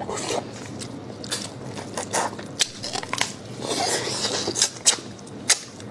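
Biting and crunching on a fried monkfish bone, with chewing and scattered sharp cracks close to the microphone.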